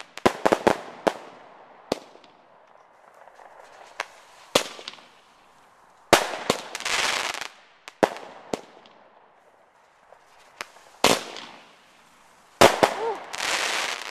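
Consumer fireworks going off: sharp bangs in several clusters, some followed by about a second of crackling.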